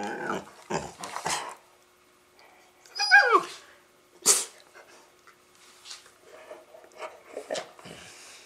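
Dogs play-fighting, Labradors with a Rottweiler puppy: short play growls and grunts, then about three seconds in a high whine that falls steeply in pitch, followed a second later by one short, sharp bark, then softer grunts and snuffles.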